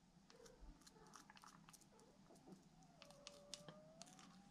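Near silence with faint scattered sticky clicks and squelches: a runny, jelly-like homemade slime being stirred and lifted with a wooden stick in a glass bowl.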